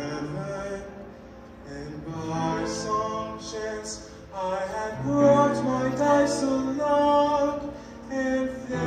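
Male vocal ensemble singing in close harmony on long held chords, with a low bass note sustained from about four seconds in.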